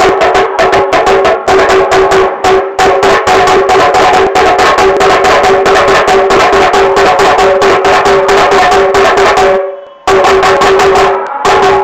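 Tasha (tassa) drum beaten with sticks in a fast, continuous roll of strokes over the drumhead's ringing tone. The roll fades out briefly about ten seconds in, then starts again.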